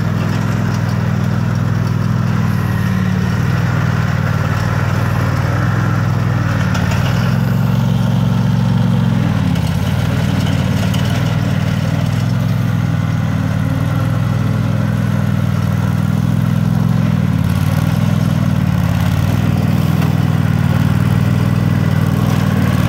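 Lawn-mower engine of a homemade tracked vehicle built on two Toro zero-turn hydrostatic drives, running steadily under load as the machine crawls over sand. Its pitch dips and rises slightly a few times.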